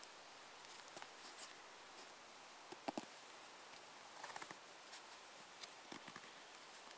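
Faint handling sounds of nylon webbing straps being pulled through cam buckles on a foam sleeping-pad splint: a sharp click about three seconds in and a short run of small ticks a second later.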